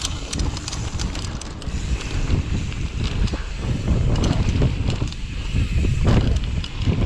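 Mountain bike ridden fast over a dirt-jump line: wind buffeting the microphone over the tyres rolling on packed dirt and the bike rattling, with sharp clicks near the start.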